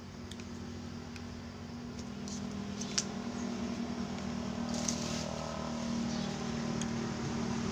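Steady low engine hum, slowly growing louder, with a few light clicks of a metal spoon against a ceramic bowl.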